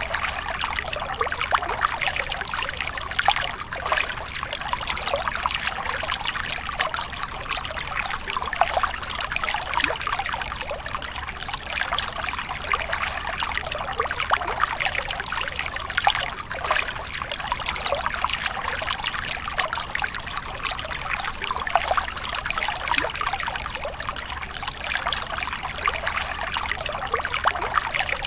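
Thin trickle of water spilling off a rock ledge into a small shallow pool, a steady run of small splashes and dribbles.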